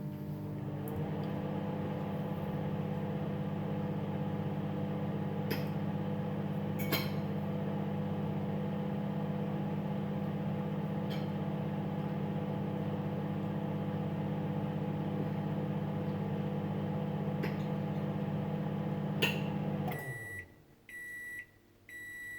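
Budget Kmart microwave oven running with a steady hum and a few faint clicks. It shuts off near the end and then beeps repeatedly, about one short high beep a second.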